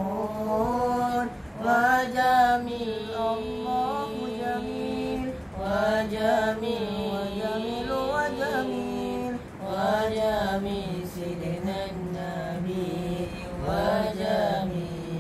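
A boy singing an Arabic devotional nazam solo and unaccompanied, drawing out long held notes that waver and turn in ornaments, with short breaths between phrases.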